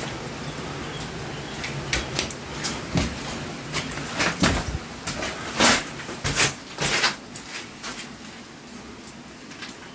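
A series of irregular knocks and clunks, coming thick and loud about four to seven seconds in, then thinning out.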